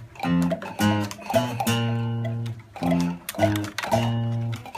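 A class ensemble of plucked rubber band instruments and palm pipes playing a simple phrase in unison: two short notes, then a longer held note, and the phrase is played twice.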